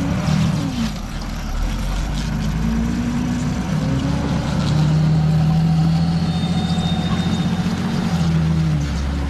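Hägglunds Bv206 tracked all-terrain carrier driving past through soft, boggy forest ground, its engine note rising and falling as it works, then holding a steady, louder note for a few seconds before easing off near the end.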